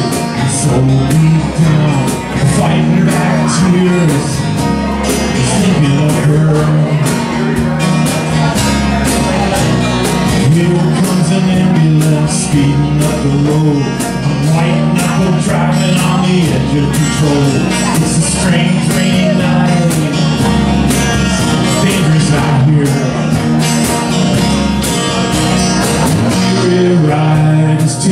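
Live country band playing on acoustic guitars, strummed and picked to a steady beat, with a bass line underneath.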